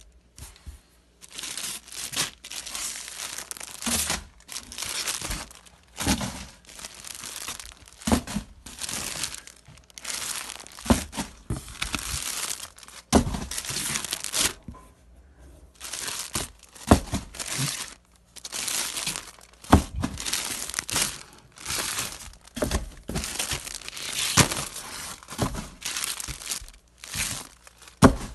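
Clear plastic bags crinkling and rustling in repeated bursts as bagged shirts are handled and shuffled, with a few light knocks among them.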